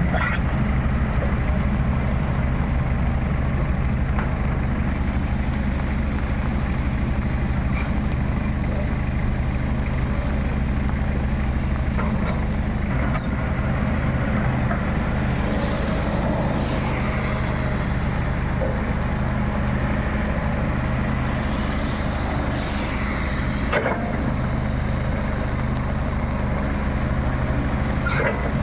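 Excavator's diesel engine running steadily, with a few faint rising and falling whines around the middle.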